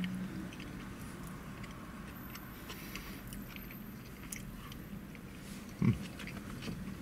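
A man chewing a mouthful of vegan cheeseburger with small wet mouth clicks and smacks. A brief low sound about six seconds in stands out as the loudest moment.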